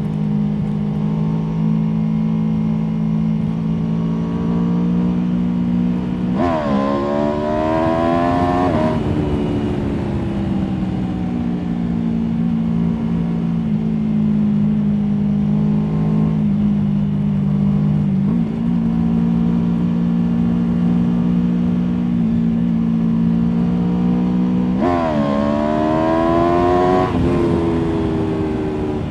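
Aprilia Tuono V4 motorcycle's V4 engine under way, holding a steady note for long stretches. Twice, about six seconds in and again near the end, the revs dip and then climb for about two seconds under acceleration before falling back.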